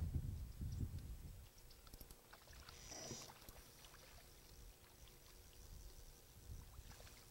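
A hooked largemouth bass thrashing at the water's surface, with one brief splash about three seconds in, over faint low rumble.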